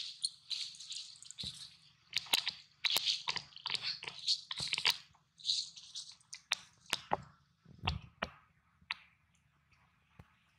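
Dry leaf litter crunching and crackling under the macaques as they shift and move, in a quick irregular run of crackles and rustles that thins out near the end.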